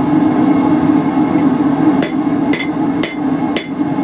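Hand hammer striking a hot railroad spike on an anvil, four ringing blows about half a second apart in the second half, bending a slight curve into the spike. A steady low hum runs underneath.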